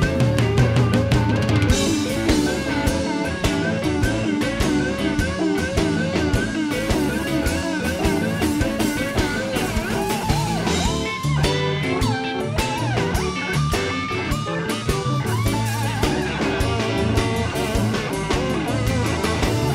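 Blues band music: a guitar playing lead with wavering, bent notes over a drum kit, loud and continuous.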